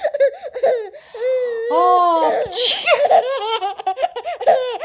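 A baby laughing in repeated high, bubbling peals. A woman sneezes about two and a half seconds in, and fresh laughter follows.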